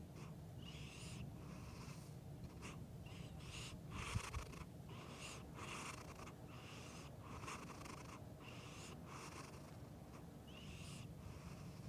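Sleeping cat snoring: a steady series of short, hissy breaths in and out, about one a second. A brief low thump comes about four seconds in.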